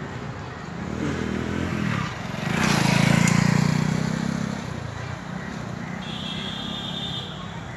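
A motor vehicle passes close by: its engine hum builds for a couple of seconds, peaks about three seconds in, then fades away. A brief faint high tone follows near the end.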